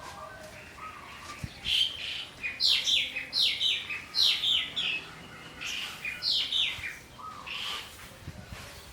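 Small birds chirping: a busy run of quick, falling high chirps through the middle, with a few lower short whistled notes.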